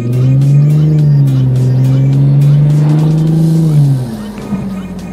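Infiniti G35's V6 engine pulling under acceleration, its revs climbing and then holding for about three seconds before dropping sharply near four seconds in as the throttle is lifted. Music plays underneath.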